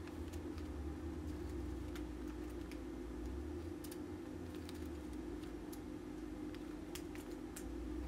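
Small brass heat-set inserts ticking lightly on a steel workbench as they are set down one at a time, a few scattered clicks, over a steady low hum.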